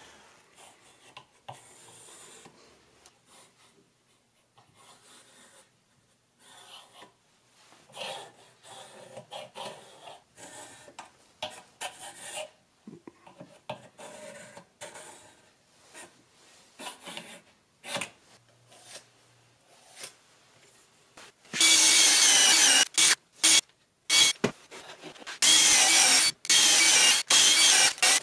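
Faint, intermittent scratching of a pencil on a wooden board as arcs are scribed with a beam compass. About 22 seconds in, a power drill starts boring into the wood, much louder, in a few short runs and then a longer one.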